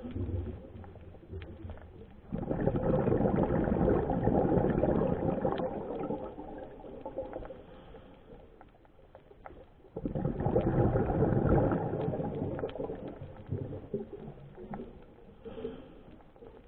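Underwater scuba breathing: exhaled bubbles rush from the regulator in two long bursts about eight seconds apart, each starting suddenly and fading. Quieter breathing sounds and scattered sharp clicks fill the gaps between them.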